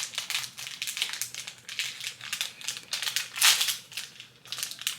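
Plastic packaging crinkling in irregular bursts as it is handled and torn open, with the loudest crackle about three and a half seconds in.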